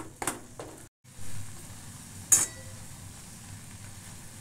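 A metal spoon stirring dates simmering in milk in an aluminium pan, scraping and clinking against the pan a few times, the loudest clink about two seconds in, over a steady low hiss from the simmering pan. The sound cuts out briefly about a second in.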